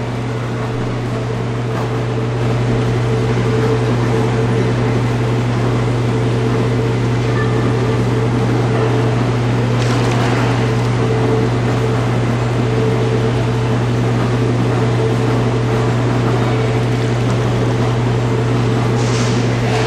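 An electric air blower running with a steady low hum over an airy hiss, growing a little louder a few seconds in, with two brief surges of hiss about halfway and near the end. It blows air across the water in the cylinder to raise waves.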